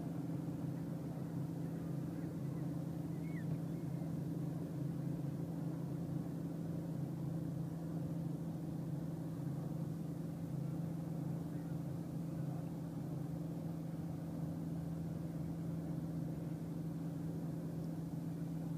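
A motor running steadily: a low, even drone that does not change.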